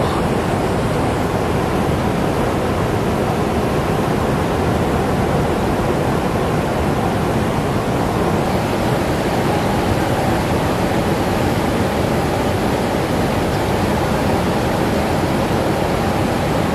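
Fast river current rushing and breaking over rocks: a steady, loud wash of water noise with no let-up.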